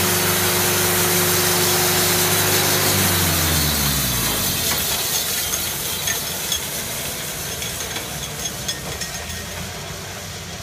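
Wood-Mizer LT70 portable band sawmill running steadily. About three seconds in, its running tone falls in pitch and dies away as the machine winds down, leaving a lower mechanical rumble with scattered light clicks while the saw head travels along its track.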